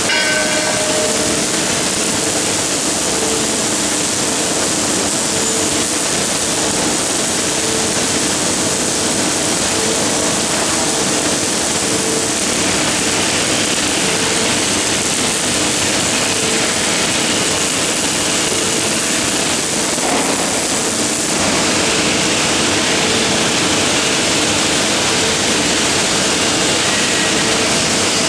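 Automatic MIG welding on a CNC gantry welder: a steady, loud arc hiss, with a faint tone pulsing about every second and a half. The sound shifts slightly about three-quarters of the way through.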